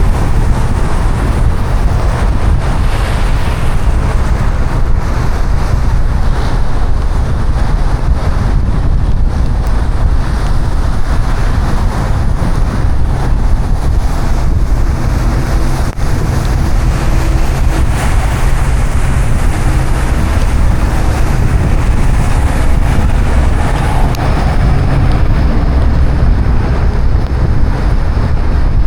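A car driving through heavy rain: a steady rush of rain and tyre spray on the wet road over a deep, constant rumble.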